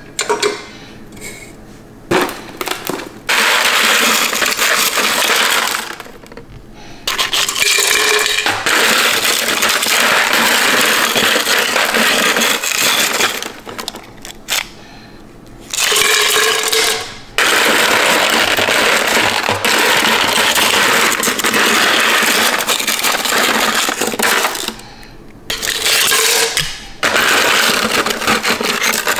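Ice clattering and scraping as a plastic scoop digs through small round ice pieces in a plastic bin. It comes in long stretches of several seconds, with short pauses between them.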